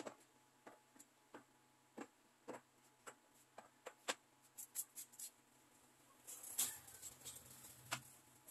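Faint, irregular light clicks and knocks of canned goods being handled and set down on store shelves, with a brief rustle about two-thirds of the way through.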